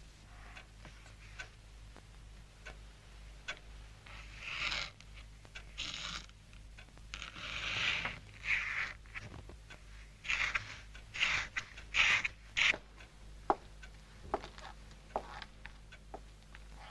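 A pen scratching across paper in a run of short strokes, with scattered light ticks and taps between them, over a low steady hum.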